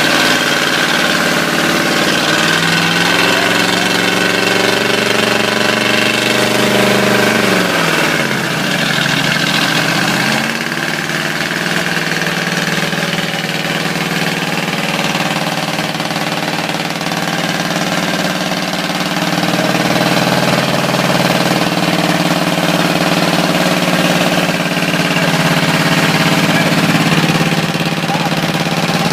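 Ford 351 Windsor V8 with a spun bearing running hard. Its revs climb about two seconds in, hold, then fall sharply around eight seconds, and pick back up a couple of seconds later to run fairly steadily with small surges.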